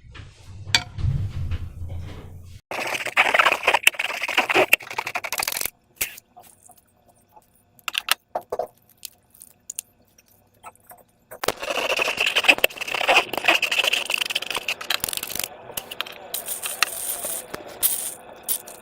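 Slime and rubber balloons being handled and squeezed: long stretches of sticky crackling and scraping, with short clicks and near-quiet pauses between them. A low rumble comes first, during the first couple of seconds.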